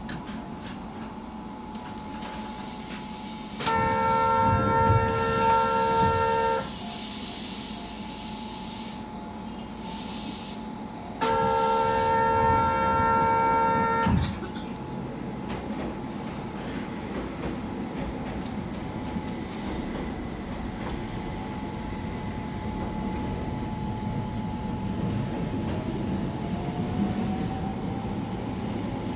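Two long blasts of a Keihan Keishin Line electric train's horn, each about three seconds long and about seven seconds apart, over the steady hum and rumble of the train. Near the end a faint rising whine comes in as the train gets under way.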